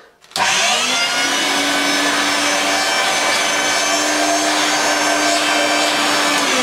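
Electrolux Twin Turbo upright vacuum cleaner switched on a moment in, its motor spinning up and then running steadily with a whine of several tones, run for a suction test. Right at the end the pitch begins to fall as it is switched off and winds down.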